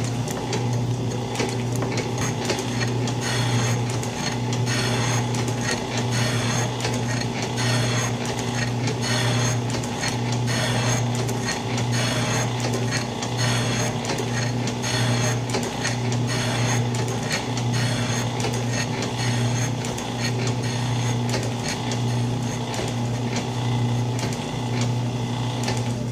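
Old Atlas metal shaper running under cut: a steady motor hum with a regular rhythm of clicks and knocks as the ram strokes back and forth and the tool planes the cast box bed, the feed advancing 15 thousandths per stroke.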